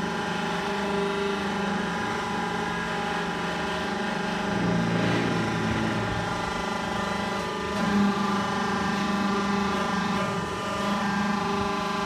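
Vertical hydraulic baler's motor and hydraulic pump running with a steady hum of several tones as the twin-cylinder press plate is raised under lever control. The pitch of the lower tones shifts near the middle, and there is a brief louder surge about eight seconds in.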